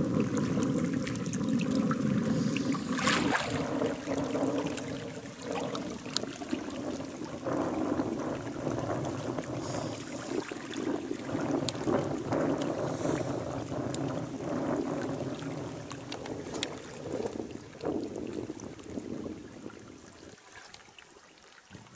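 River water sloshing and splashing as a person wades through it, an irregular watery rush with small splashes, fading away near the end.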